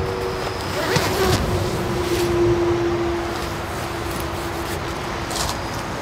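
Nylon down sleeping bag being unzipped, with a quick zip stroke about a second in, then the rustle of the bag as a person climbs out of it. A steady low hum runs underneath, swelling for a second or so around the middle, over a constant background hiss.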